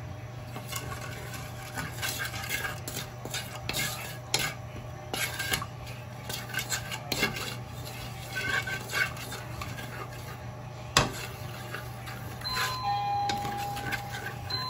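Slotted wooden spatula scraping and knocking against a wok as butter melts in it, over a low steady hum. Steady electronic-sounding tones come in near the end.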